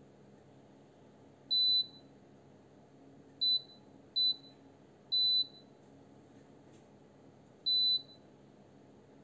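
Amica built-in dishwasher's control panel beeping: five short, high electronic beeps at uneven intervals while the panel lights up and its display runs through its segments.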